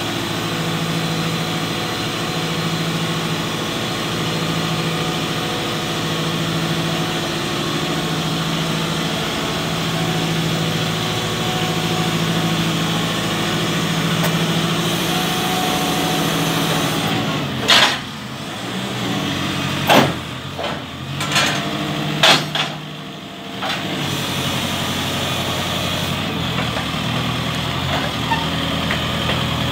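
The diesel engine of a JCB 535-140 telehandler running steadily while its boom is retracted and lowered. Several sharp knocks come a little over halfway through.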